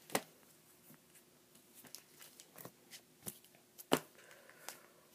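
Comic books being handled: a sharp tap just after the start, then light rustles and taps, with two more distinct taps about three and four seconds in, as one issue is taken away and the next is picked up.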